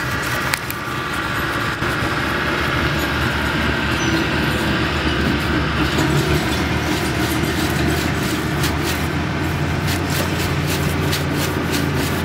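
Rag rubbing polish by hand over the painted metal skin of a Piper aircraft's fuselage, repeated scrubbing strokes as it lifts oxidised paint, over a steady engine drone of heavy equipment.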